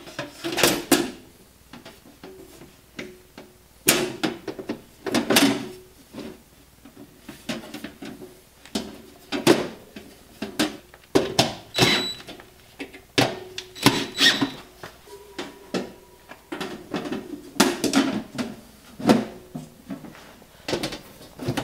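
Sheet-steel wireway covers being fitted and pushed into place by hand: a run of metal clanks, knocks and scrapes, some hits leaving a short metallic ring.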